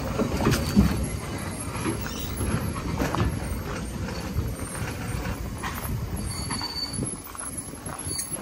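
Narrow-gauge steam train's coaches rolling slowly along the platform: a low rumble with wheels clicking and knocking irregularly over the rail joints, and a brief high wheel squeal a little past the middle.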